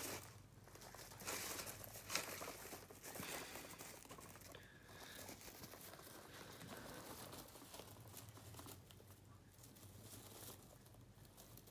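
Guinea pigs scurrying through hay and wood-shaving bedding: faint, irregular rustling and crinkling, busiest in the first few seconds.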